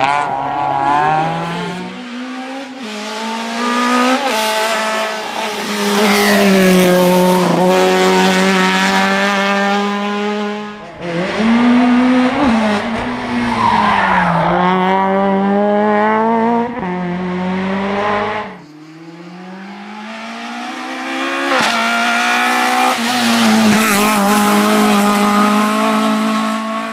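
Competition cars running hard through a slalom course, one after another. The engines are held high in the revs, their pitch stepping and dipping as the drivers lift and shift. The sound falls away briefly twice between cars.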